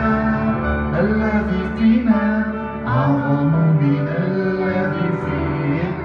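Worship song played on a Korg electronic keyboard, with a man singing a slow, gliding melody over it.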